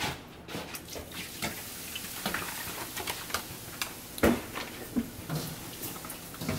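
Vinegar poured from a jug over shredded callaloo leaves coated in baking soda in a stainless steel bowl, a soft hiss of liquid on the leaves, then hands turning the wet leaves with scattered small ticks and one sharp knock a little past four seconds in.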